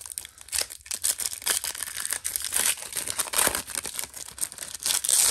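Gold foil wrapper of a Fleer basketball card pack being torn open and crinkled by hand: a rapid run of crackling rips and crinkles, loudest near the end.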